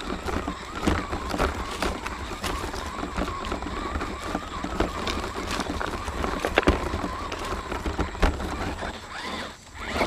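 RC rock crawler's motor and drivetrain whining as it crawls over loose creek rocks, with the tyres and chassis clattering and knocking on the stones. The whine fades out briefly about nine and a half seconds in.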